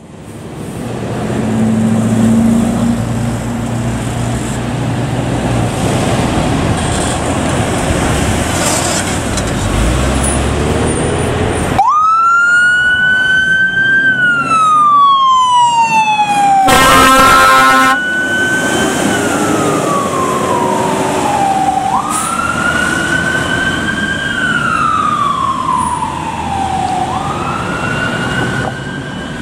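Fire engine pulling out of the station, its engine running with a low rumble. About twelve seconds in, its siren starts a slow wail, rising and falling over several seconds at a time. About five seconds later an air horn gives one blast of about a second, and the siren wail continues.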